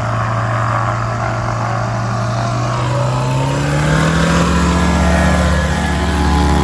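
Kitfox light aircraft's engine and propeller running close by as it taxis on grass. About three and a half seconds in, the engine note rises and grows stronger as power comes on for the takeoff run.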